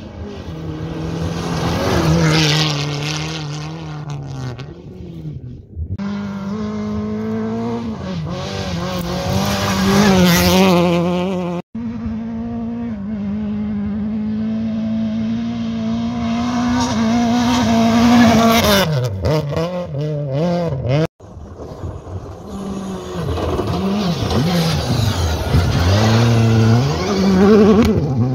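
Rally cars racing past at speed on a gravel road, engines revving hard with the note dropping and climbing again at gear changes and lifts, and loose gravel and dust hissing as each car goes by. Four passes follow one another with abrupt cuts between them.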